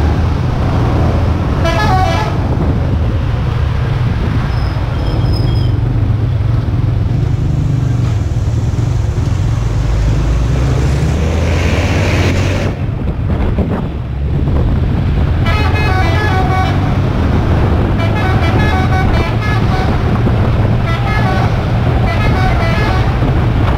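Mountain minibus engines and road noise running steadily, with a vehicle horn tooting in quick repeated runs through the second half and briefly near the start.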